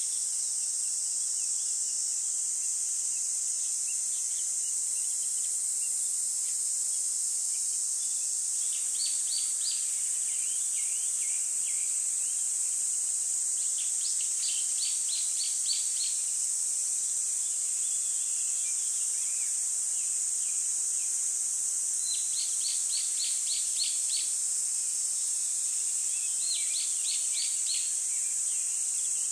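A steady high-pitched insect chorus, with a bird singing four short trills of quick repeated chirps, each lasting about two seconds.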